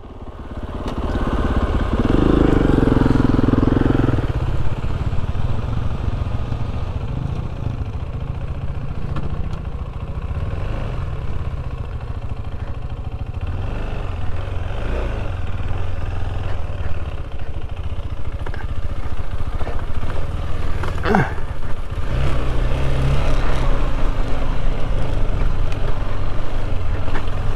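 KTM 390 Adventure's single-cylinder engine running at low revs as the motorcycle picks its way slowly over rough trail. The revs rise briefly about two seconds in, and the pitch steps up and down with the throttle.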